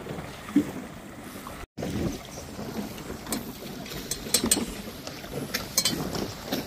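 Choppy water lapping and slapping against the hull of a small boat, with wind on the microphone. Sharp splashy slaps come mostly in the second half, and the sound drops out completely for an instant about two seconds in.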